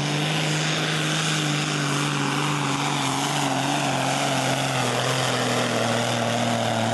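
Valtra pulling tractor's diesel engine running flat out under heavy load as it drags the weight sled, a steady loud drone whose pitch sinks slightly as the pull goes on.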